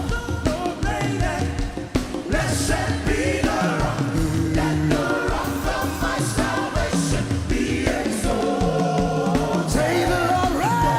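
Live gospel praise music: voices singing together over a band, with bass and drums keeping a steady beat.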